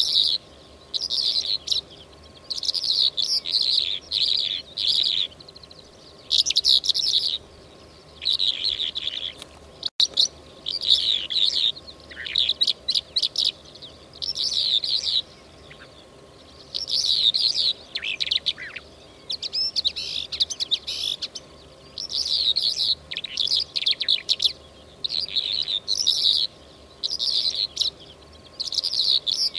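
Lark song: bursts of fast, high twittering phrases, each half a second to a second long, repeated with short pauses between them. It is a recorded call used as a hunting lure.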